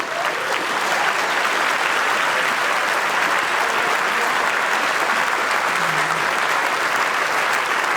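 A large audience clapping steadily, rising in the first second and then holding level.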